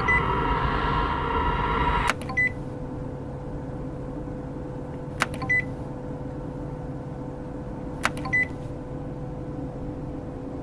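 Sci-fi electronic sound-effect ambience: a steady low hum with a held tone. A brighter droning tone cuts off with a click about two seconds in, then three times, about every three seconds, a click is followed by a short high beep.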